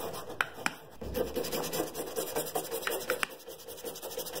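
A stiff-bristled trim brush scrubbing black plastic car door trim with trim cleaner, a quick rhythmic back-and-forth rasp. A few sharp clicks stand out, twice early on and three times near three seconds in.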